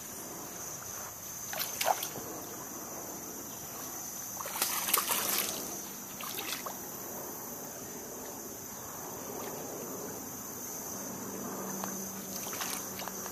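Water splashing and sloshing in short bursts, about two seconds in and again more strongly around five seconds, with a steady high-pitched hum running underneath.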